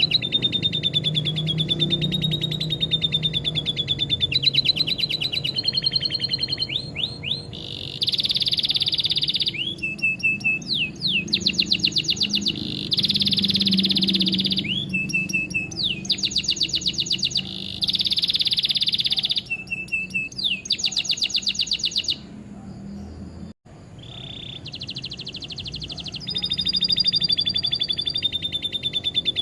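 Canary song mixed with lovebird trills: repeated blocks of very fast, high-pitched trilled notes alternating with warbled phrases and quick up-slurs. The song breaks off for a moment about 23 seconds in, then resumes.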